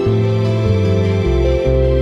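Instrumental background music with long held notes; the bass moves down to a lower note a little over a second in.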